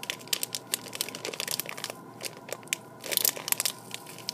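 A plastic M&M's candy bag crinkling and crackling in the hands as it is twisted and pulled at the top, struggling to tear open. The crackles come in irregular clusters, with a short pause about two seconds in and a louder burst just after three seconds.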